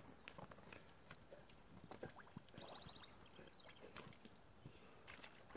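Near silence with faint scattered clicks and knocks, a dog picking its way over the wet sticks of a beaver dam. A short, faint high trill comes about halfway through.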